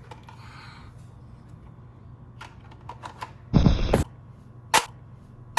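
Toy foam-dart blaster being worked: light scattered clicks, a loud buzz lasting about half a second roughly three and a half seconds in, then two sharp snaps about a second apart.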